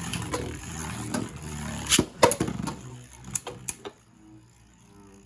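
Two Beyblade Burst spinning tops whirring and rattling against each other in a plastic stadium. Sharp clicks of hits come about two seconds in and again after three seconds, then the sound fades to a faint hum as the spinning winds down.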